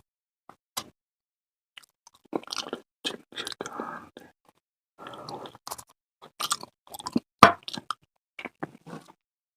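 Close-miked chewing of food in a mukbang, curry udon or takoyaki: wet mouth noises and smacking clicks in irregular bursts with silent gaps, the loudest a single sharp click about seven seconds in.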